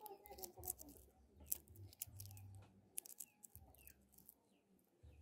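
Faint, scattered crackling clicks as fingers rub and peel the dry papery skin off a coffee bean, with bursts of low rumble from handling or wind on the microphone.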